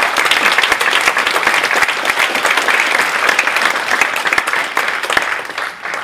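Audience applauding, a dense patter of many hands clapping that fades near the end.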